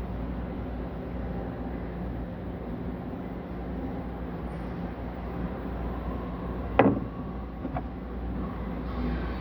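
Steady low machine hum, with one sharp knock about seven seconds in and a lighter tap just after, as the parts of a disassembled pneumatic solenoid valve are handled.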